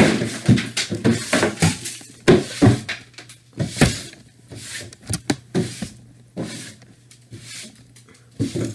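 Clutter being cleared off a wooden desk by hand: small objects clattering, scraping and knocking together in a string of irregular bursts.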